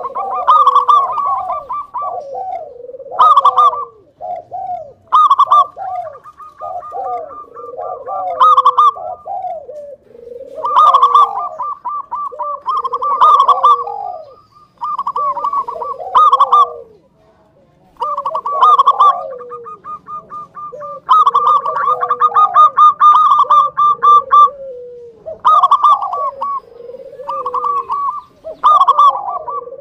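Local zebra dove (perkutut) singing vigorously: repeated cooing phrases of quick high notes over lower sliding coos, with a short pause a little past halfway. This is the lively song kept as a lure to get other perkutut singing.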